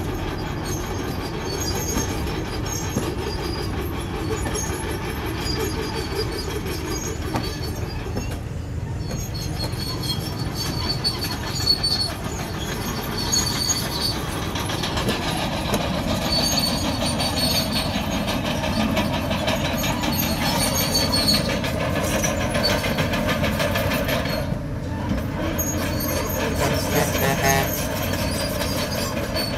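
Komatsu crawler bulldozer working, its diesel engine running under steady track clatter while the steel tracks squeal on and off in high tones.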